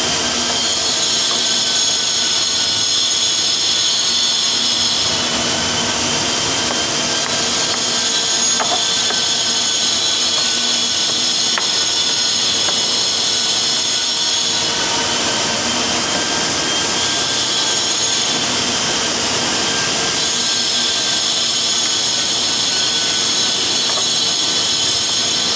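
Steady, loud whirring of a motor-driven machine with a high whine, its tone shifting a little every few seconds.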